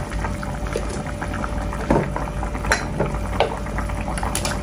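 Pot of chicken tempoyak soup at a full rolling boil, bubbling and popping steadily, with a few louder clicks partway through.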